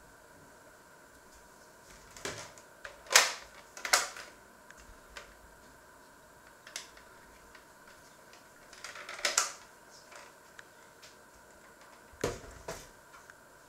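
Scattered sharp clicks and knocks of things being handled, in small clusters, the loudest about three and four seconds in, with more around nine and twelve seconds in.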